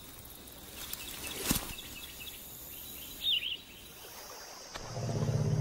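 Outdoor natural ambience with a steady background hiss, a few faint bird chirps and one short click. Near the end a louder, low, steady drone comes in.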